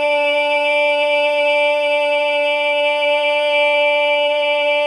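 A man's singing voice holding one long, steady high note to finish a song.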